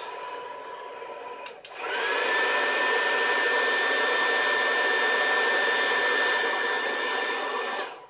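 Handheld hair dryer running with a steady whine. After a click about a second and a half in, it spins up to a louder, higher-pitched whine and runs steadily, then is switched off just before the end.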